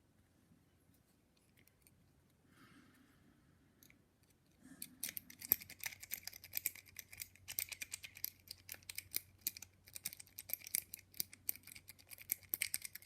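Lock-pick rake being worked in and out of a padlock's keyway, pin tumblers clicking against it: a fast, dense run of small metallic clicks and scrapes that starts about a third of the way in.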